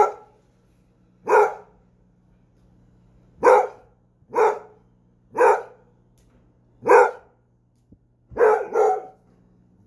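Basset hound barking: about eight single barks, one every second or two, ending with a quick double bark near the end.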